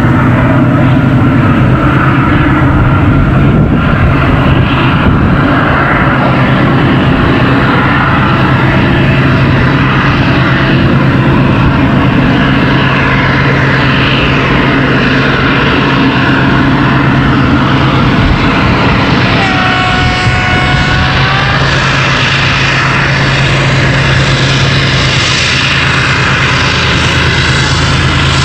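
TE33AC diesel-electric locomotives, GE GEVO12 V12 engines, working hard under load as they haul a loaded freight train up a steep grade: a loud, steady engine drone. About two-thirds of the way through, a locomotive horn sounds one blast of about two seconds that sags slightly in pitch as it ends.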